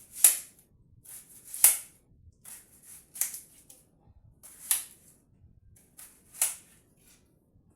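Kitchen knife chopping: five sharp strikes about every second and a half, with lighter knife taps between them.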